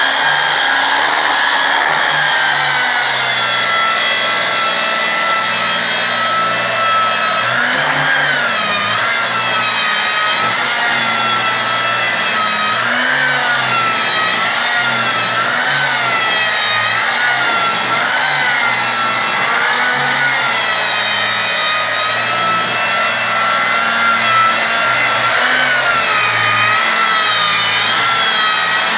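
Electric angle grinder with a coarse 60-grit sanding disc running steadily while sanding a wooden door frame, the first sanding stage. Its motor whine wavers up and down in pitch as the disc is pressed onto and moved over the wood.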